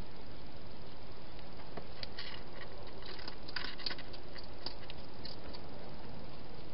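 Wild hedgehog eating from a bowl: quick, irregular clicky crunching and smacking that starts about two seconds in and lasts about three seconds, over a steady hiss.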